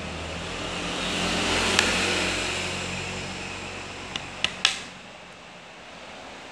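A vehicle passing, its rushing noise swelling to a peak about two seconds in and then fading away. Near the end, a few sharp plastic clicks come from a Samsung smartphone's back cover being handled.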